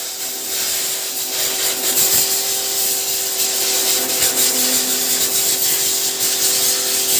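1,800-watt electric high-pressure washer running with its spray trigger held: a steady motor-and-pump hum under the loud hiss of the water jet blasting into a thick styrofoam block.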